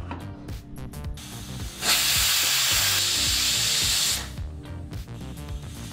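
Aluminium stovetop pressure cooker whistling: steam hisses out of the weight valve for about two seconds, starting about two seconds in, as the cooker reaches full pressure.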